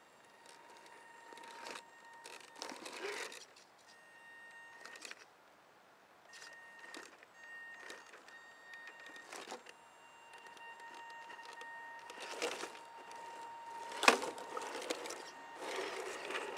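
Electric motor of an RC 4x4 truck whining steadily as it crawls over tree roots and forest litter, with irregular crackles of twigs and needles under the tyres and one sharp click near the end.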